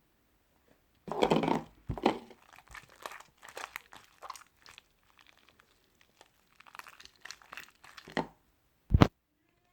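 Irregular crinkling and rustling, as of something being handled and crumpled, loudest about a second in, followed near the end by one short sharp knock.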